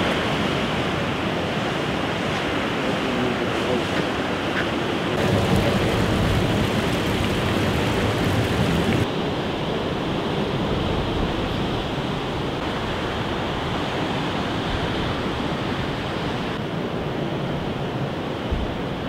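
Ocean surf and wind on the microphone: a steady rushing noise whose level changes abruptly a few times, louder from about five seconds in and quieter again after about nine.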